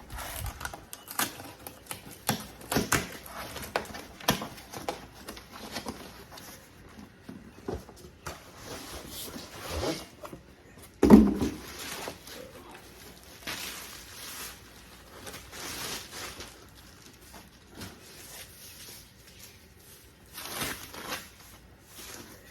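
Handling noises from work on motorcycle exhaust parts: scattered clicks, knocks and rustling, with one louder dull thump about eleven seconds in.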